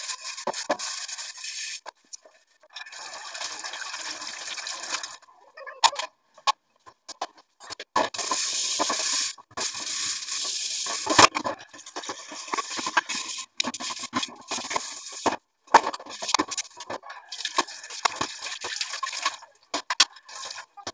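Tap water running into a stainless steel sink in stretches that stop and start, as steel pots and dishes are rinsed by hand. Sharp clanks and knocks of metal and crockery come between the water sounds.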